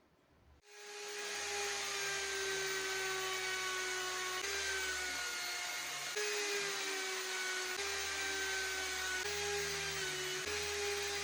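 A small electric power-tool motor starts about a second in and runs steadily with a high whine, its pitch dipping slightly now and then.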